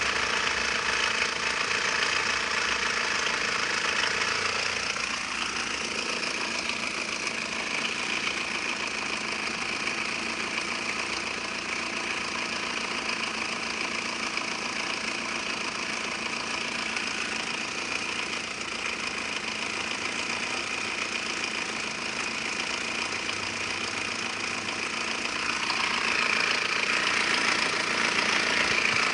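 ZMZ-406 inline-four petrol engine, fully warmed up, idling steadily; it grows somewhat louder about 26 seconds in.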